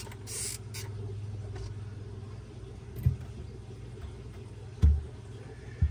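Flat stones being set and knocked onto a stacked pile, with a few light clicks in the first second and two dull knocks about three and five seconds in, the second the loudest. A steady low hum runs underneath.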